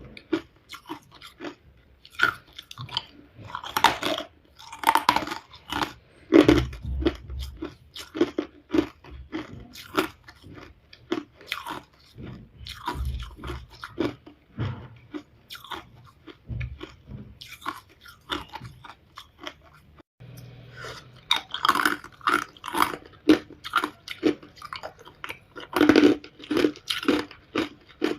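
Hard ice being bitten and chewed, a long run of quick, crisp crunches with a short break about twenty seconds in.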